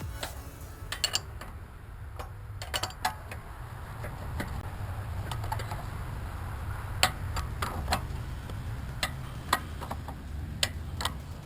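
Scattered sharp clicks and knocks, irregular and a few seconds apart, from hand work on go-kart parts, over a low steady hum.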